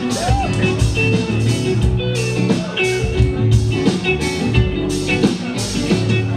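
Live rock band playing, electric guitars over drums with a steady beat.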